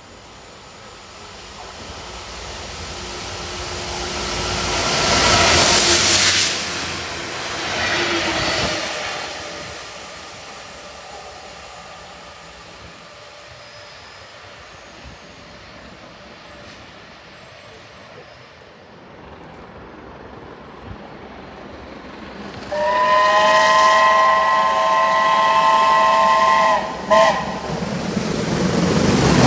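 A diesel locomotive passes at speed, its noise building to a peak about five seconds in and fading by about ten seconds. Later, steam locomotive 70000 Britannia, a BR Standard Class 7 Pacific, sounds a long whistle blast of about four seconds, then a short toot. The noise of the approaching engine and train grows loud near the end.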